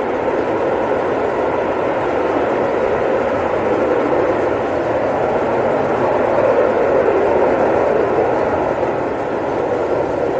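Alpha Jets' twin turbofan engines running as the jets fly low over the runway and climb away, a loud steady jet noise that swells slightly about six seconds in.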